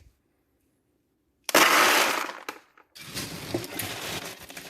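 Pine litter pellets poured from a scoop into a litter pan. After a silent start there is a loud rush of pellets about a second and a half in, then a softer rattle of pellets shifting and clicking.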